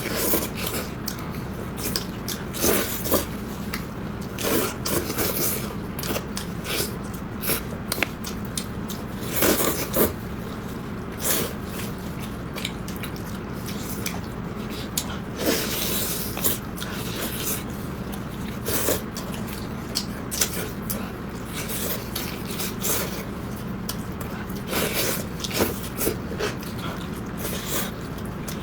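Close-up eating sounds of someone chewing braised chicken: wet smacking and irregular small crunches as soft bones are bitten and chewed, about one every second or so.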